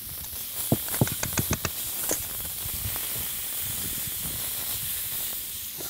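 Pork chops sizzling with a steady hiss on a hot charcoal kettle grill as they are turned with metal tongs. About a second in comes a quick run of sharp metal clicks from the tongs, then the sizzle carries on.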